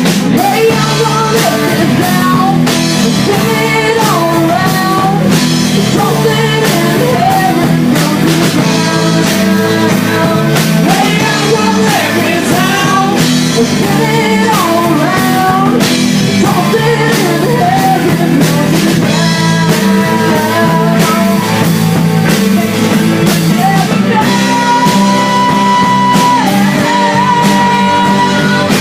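A live rock band playing: a sung lead vocal over guitars and a drum kit, loud and steady throughout.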